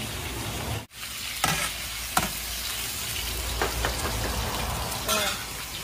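Diced vegetables and meat sizzling in hot oil in a large wok, a steady hiss that cuts out briefly just before a second in. A few sharp clicks of the big metal ladle against the wok.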